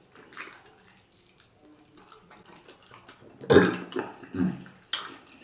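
A man burps loudly about three and a half seconds in, a low, drawn-out belch in two pushes, after faint mouth and eating noises.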